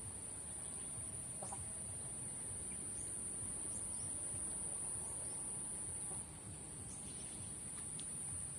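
Insects trilling in a steady, high-pitched drone that drops slightly in level a little past six seconds in, with a few short, faint chirps over it.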